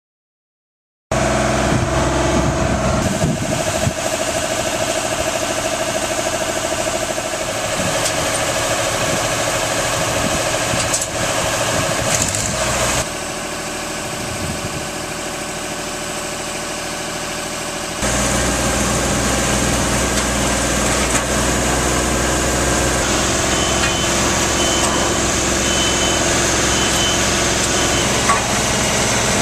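Boom lift's engine running steadily, dropping in level for a few seconds midway, with a faint high beeping repeating in the last few seconds.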